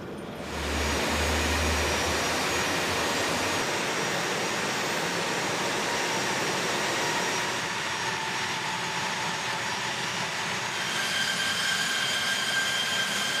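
Jet engine noise from an A-10 Thunderbolt II's General Electric TF34 turbofans running on the ground. It is a steady rush with a high whine, and the whine grows stronger near the end and dips slightly in pitch.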